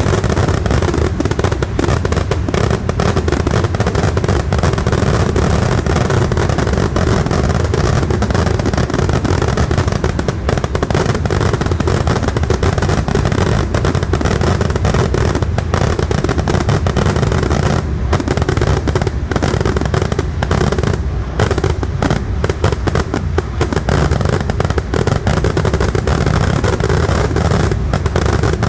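Kerala vedikettu fireworks in a dense, continuous barrage: rapid bangs overlap into an unbroken rumble with no real pause.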